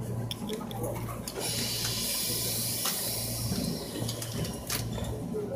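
Compressed air hissing for about two seconds, starting about one and a half seconds in, from a Korail Line 1 resistance-controlled electric train. Under it a low hum pulses on and off, with scattered clicks.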